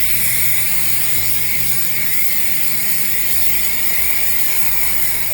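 Steady loud hiss of car-wash spray equipment over a low machine hum.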